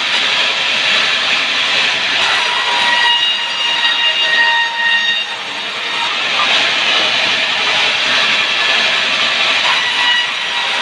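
Sawmill blade cutting through a sengon (albizia) log: a loud, steady sawing hiss with high whining tones that come and go.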